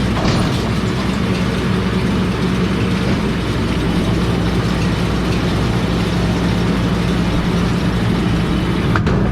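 John Deere 6110 diesel tractor's engine running steadily, pulling a John Deere 566 round baler with its pickup and chains working.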